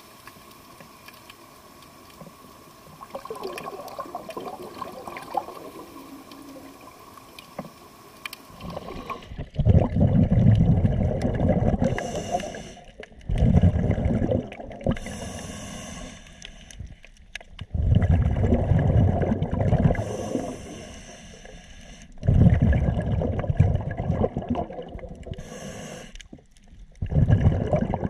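Scuba diver breathing through a regulator underwater: a loud bubbling rumble of exhaled air about every four seconds, each followed by a short hiss of inhaling, starting about nine seconds in after a quieter stretch with a faint steady hum.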